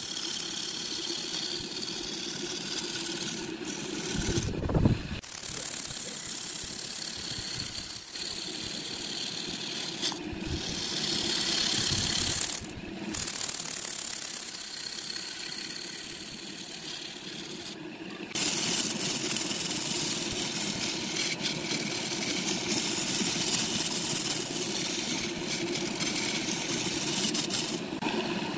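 Wood lathe running with a turning tool cutting the spinning wood: a steady motor hum under a loud hissing scrape, changing abruptly a few times.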